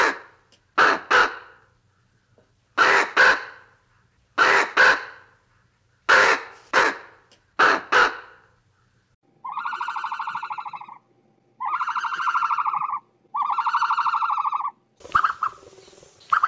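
Raven calling: loud, harsh croaks, mostly in quick pairs, repeated about every second and a half. About halfway through they give way to long, buzzy, drawn-out notes of about a second and a half each, four in a row with short gaps.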